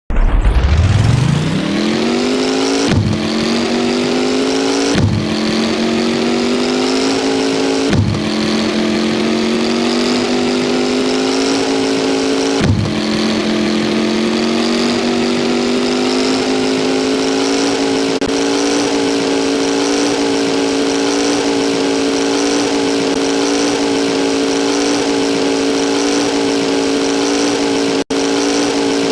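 V8 engine revving up and accelerating through four gear changes, each one a brief drop in revs followed by a climb. It then runs on at steady high revs, with a momentary cut in the sound near the end.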